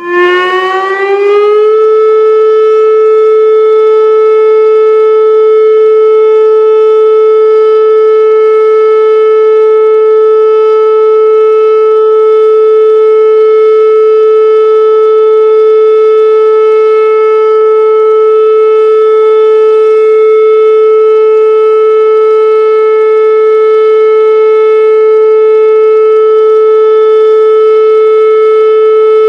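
Warning siren winding up over about two seconds, then sounding one loud, steady, unwavering tone: a steady alert signal.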